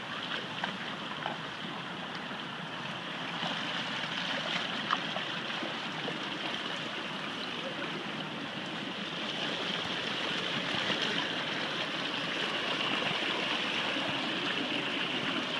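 River water running steadily: a continuous even wash of water noise, with a few small ticks in the first five seconds.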